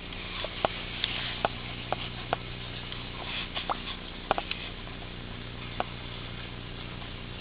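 About ten light, sharp clicks and taps at uneven intervals, bunched in the first six seconds, over a steady low electrical hum.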